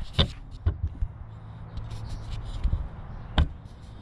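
A few separate sharp knocks and taps from handling the bicycle, over a low steady hum.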